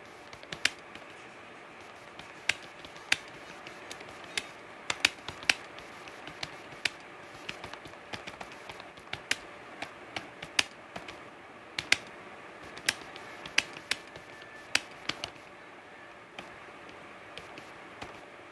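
Typing on a computer keyboard: irregular sharp key clicks, a few a second, stopping about fifteen seconds in, over a steady faint hiss.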